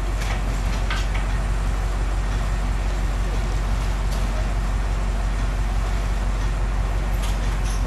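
Fire engine's engine running steadily at the scene with a low, even hum, the pump supplying the hose, with a few faint clicks on top.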